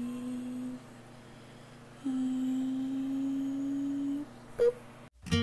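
A woman humming softly in two long held notes, the second a little higher, then a brief higher note near the end.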